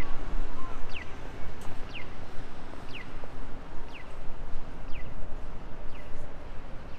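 Japanese pedestrian-crossing audible signal chirping: a short falling electronic chirp repeated evenly about once a second, over steady city street noise.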